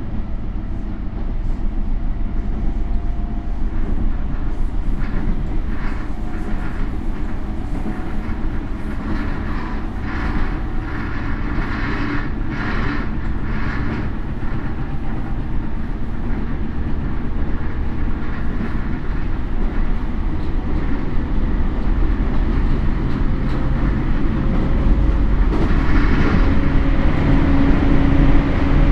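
Toei 10-300 series train running on the line: low wheel-on-rail rumble with bursts of clicking over rail joints, under the steady hum of its Mitsubishi IGBT inverter-driven traction motors, whose tones drift slowly in pitch. The sound grows louder near the end, where a motor tone strengthens. This first-batch car is known for an unusual motor sound.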